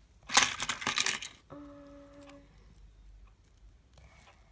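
Small loose plastic toy parts clicking and rattling against each other for about a second, followed by a steady hummed note lasting about a second.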